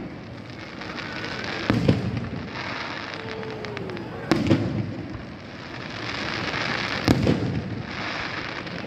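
Aerial firework shells bursting in a display: three loud bangs about every two and a half to three seconds, each a quick double report, with a steady hiss in between.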